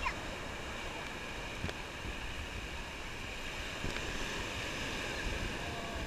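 Ocean surf washing up a sandy beach: a steady hiss of small breaking waves and foam running over the sand, with some wind on the microphone.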